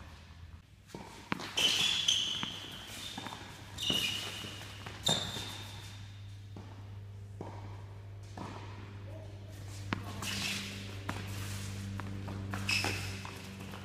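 Tennis shoes squeaking in short high chirps on a hard court, mixed with sharp knocks of feet landing during quick footwork. A steady low hum runs underneath.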